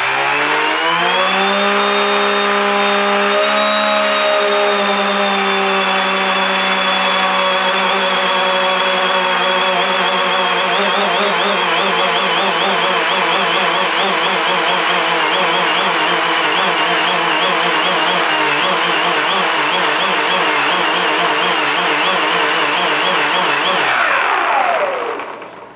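Electric brushless motor and propeller of a Mini Talon FPV plane spinning up to a steady whine. From about ten seconds in, the pitch warbles rapidly up and down as the motor sputters on a 4S Li-ion pack drained to about 10 volts, near 2.5 V per cell. Near the end it spins down and stops.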